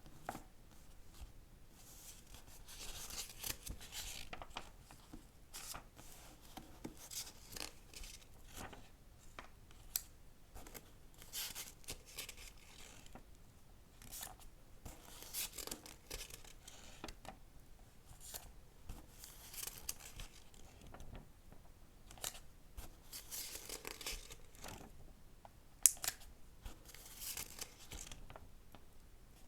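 Paper handling of a book, close up: soft swishing strokes about a second long every couple of seconds, like pages being turned and rubbed, with scattered small clicks and one sharper tap near the end.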